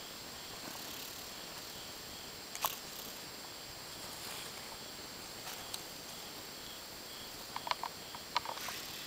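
Night insects chirping in a faint, even pulse over a steady high hum, with a few sharp clicks and rustles from camera handling, one a few seconds in and a quick cluster near the end.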